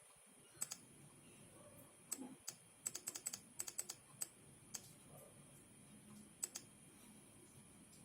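Laptop keyboard and button clicks: a few paired clicks with a quick run of keypresses in the middle, over a faint steady high-pitched tone.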